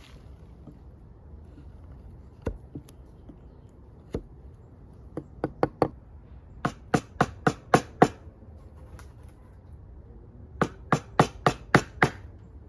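Mallet striking a chisel, scoring the shoulder of a mortise in wood: a couple of single blows, then runs of sharp knocks at about four a second.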